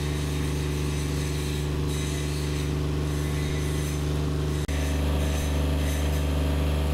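Engine of a large hired site generator running at a constant speed, a steady low hum with a brief break about two-thirds through.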